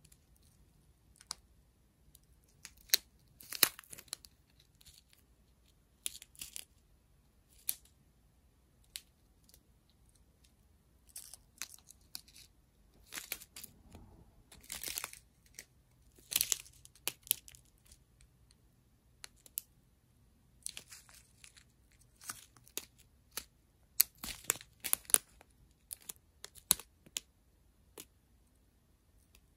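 Small plastic bags of diamond-painting drills crinkling and crackling as they are handled, in irregular bursts of sharp crackles with quiet gaps between.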